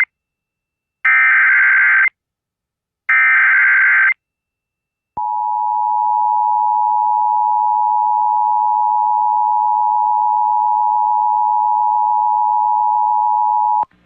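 Emergency Alert System header: two bursts of digital data tones, each about a second long and a second apart. After a short gap comes the EAS two-tone attention signal, a steady two-pitch tone held for about eight and a half seconds before it cuts off sharply. Together they mark the start of an emergency alert broadcast.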